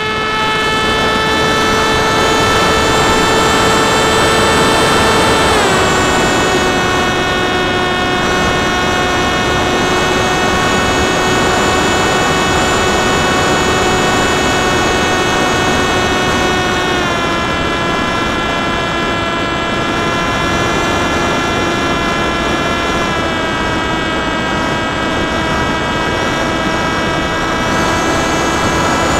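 Electric motor and propeller of a Popwing RC flying wing, heard from its onboard camera: a steady whine that steps down in pitch three times, over wind rushing past the microphone.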